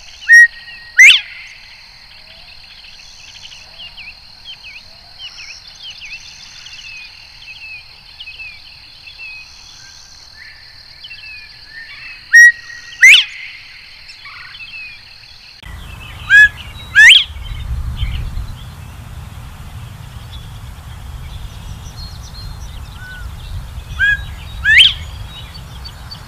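Male northern bobwhite whistling its 'bob-white' call four times, each a short first note followed by a loud whistle that sweeps sharply upward. Softer chirping of other birds and a steady high hum lie underneath in the first half, and a low rumble in the second half.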